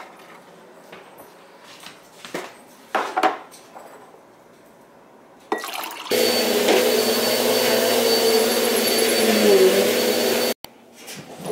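A few faint clinks of ice in a glass at a refrigerator ice dispenser, then an upright vacuum cleaner running loudly and steadily with a hum for about four seconds before cutting off abruptly.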